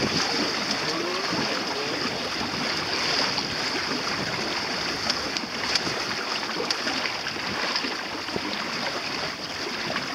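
Water rushing and lapping against the hull of a small sailing dinghy under way: a steady wash with a few small splashes.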